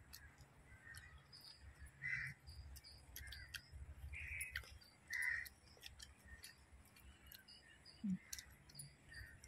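Crows cawing, short harsh calls about once a second, with faint scattered clicks.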